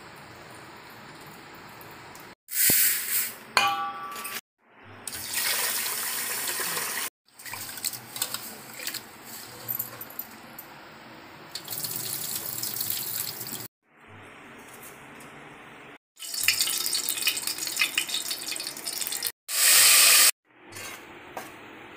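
Water sloshing and splashing as hands wash raw chicken and then rice in steel and aluminium vessels, in short clips separated by abrupt cuts. Glass bangles clink now and then, and near the end there is a short loud burst of frying as paste goes into hot oil.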